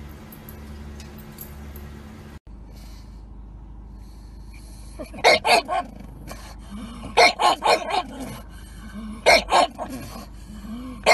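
Pug barking in short clusters of two to four sharp barks, a couple of seconds apart, over the steady low hum of a car cabin.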